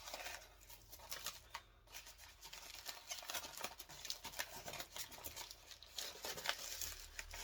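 Faint handling of product packaging as a box is opened: rustling and scraping with many small, irregular clicks and taps.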